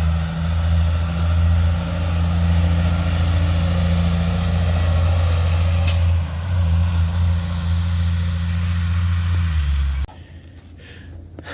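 An engine running steadily close by, a deep hum with a hiss over it, with one sharp click about six seconds in; the sound cuts off abruptly near the end.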